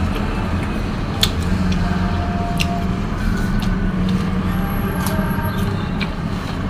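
Steady low hum with a few faint, crisp clicks scattered through it, from crunchy rose apple and mango being bitten and chewed.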